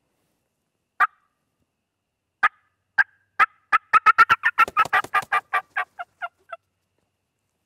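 A turkey mouth call imitating a hen's fly-down cackle. It starts with a few widely spaced notes, breaks into a rapid series of cackling notes, then slows to a few last notes. A turkey wing is beaten alongside it to mimic the hen's wings as she pitches off the limb and lands in the leaves.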